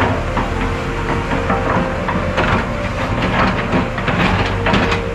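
Vehicle driving over a rough unpaved road: a steady engine drone with rattling, crunching knocks that grow thicker about halfway through.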